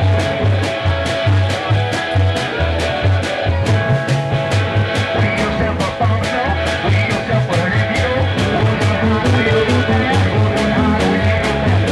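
A live band playing an instrumental number: upright bass driving a pulsing low line under electric guitars, over a fast, steady beat.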